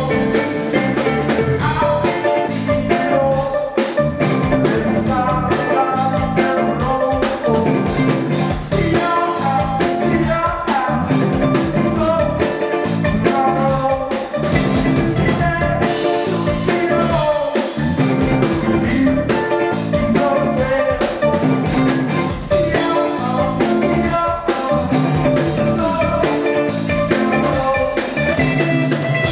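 Rock band playing live through a club PA: electric guitars, bass guitar and drum kit, heard from the audience in front of the stage.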